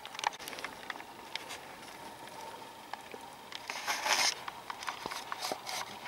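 Footsteps through the taiga undergrowth: irregular crackles and snaps of twigs and dry debris underfoot, with a longer rustling sweep about four seconds in.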